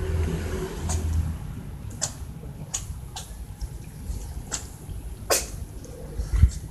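Cats chewing and biting on green vegetable strips: a series of sharp, irregular clicks about one a second, with a low rumble in the first second or so.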